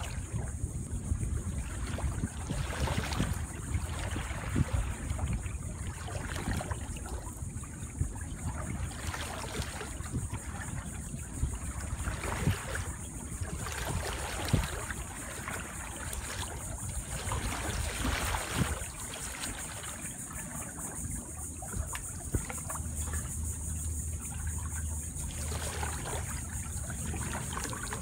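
Canoe paddle strokes through calm water, a swish of water every couple of seconds, over a low wind rumble on the microphone.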